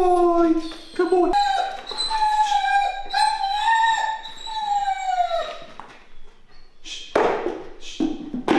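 German Shepherd whining in long, high-pitched cries: a falling whine in the first second, then a higher one held for about four seconds, with a few short noisy sounds near the end.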